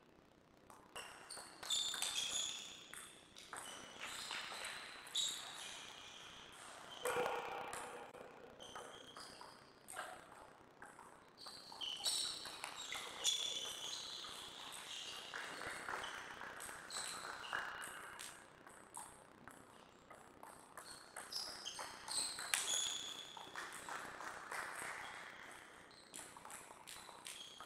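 Table tennis ball clicking back and forth off the paddles and the table in rallies, with short quieter pauses between points.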